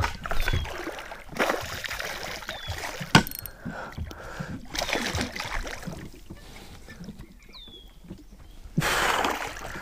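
Scattered bumps and knocks of handling in a small fishing boat while a large smallmouth bass is fought at the boat's side, with one sharp knock about three seconds in and a burst of splashing near the end.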